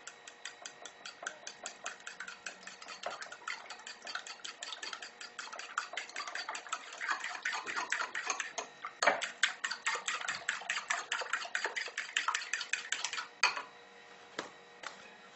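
A fork beating eggs and crème fraîche in a ceramic bowl, its tines clicking quickly and steadily against the side of the bowl. The beating stops about 13 seconds in, followed by a few separate knocks.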